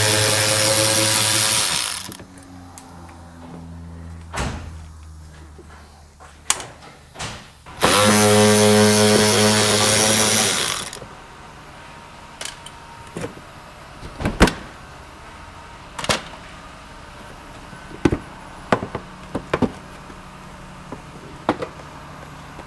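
A cordless power tool runs in two short bursts of about two to three seconds each, at the start and again about eight seconds in, backing out small bumper and splash-shield screws. Between and after come scattered sharp clicks and knocks of parts and tools being handled.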